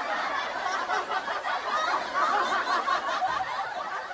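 Laughter from a group, snickering and chuckling, slowly getting quieter toward the end.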